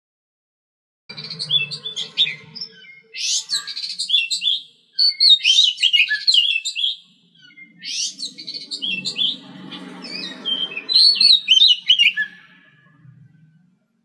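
Oriental magpie robin singing: rapid, varied high notes in three runs with short pauses between, starting about a second in.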